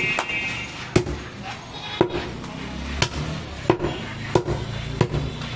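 Heavy butcher's chopping knife striking through mutton onto a wooden chopping block: about seven sharp chops, roughly one a second.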